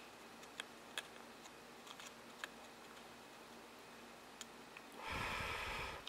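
Faint small clicks of soldering tweezer tips touching the parts of a circuit board while a tactile push-button switch is soldered down. Near the end, about a second of breathy noise, like an exhale.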